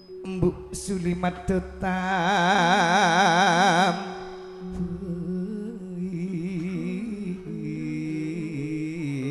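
Madurese gending music: a few sharp drum-like strikes near the start, then a loud melody with wide, fast vibrato for about two seconds, carrying on more softly with the pitch wavering and stepping between notes.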